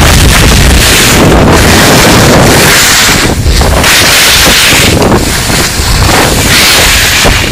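Wind noise on the microphone of a camera carried by a moving skier, loud and steady, with the hiss of skis on packed snow swelling and fading about once a second as they turn.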